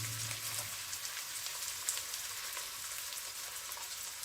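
Chopped onion and mixed peppers sizzling in hot vegetable oil in a wok: a steady crackle with many small pops. A low hum fades out just under a second in.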